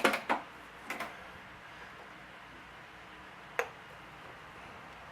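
Handling noise: a few sharp clicks and light knocks, a quick cluster at the start, another about a second in, and a single one about three and a half seconds in.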